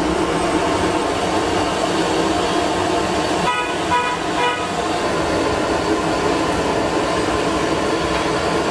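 Commercial gas burner running steadily at full flame under a large sealed aluminium biryani pot cooking on dum, a constant rushing noise. A few seconds in, a horn sounds three short toots about half a second apart.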